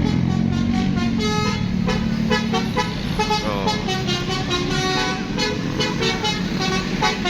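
Telolet horns on tour buses playing short multi-note tunes: quick notes one after another at changing pitches. A bus engine runs low underneath, heaviest for the first couple of seconds.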